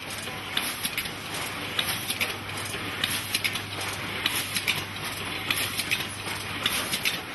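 Automated condom packaging machinery running: rapid, irregular clicking and clattering, several clicks a second, over a steady low hum.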